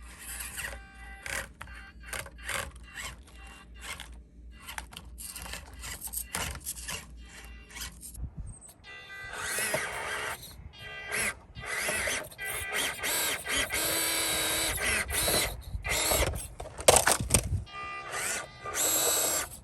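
Small-scale RC rock crawler's electric motor and geartrain whining in short stop-start bursts as the throttle is blipped. About halfway through, the whine turns longer and louder as the truck is driven harder.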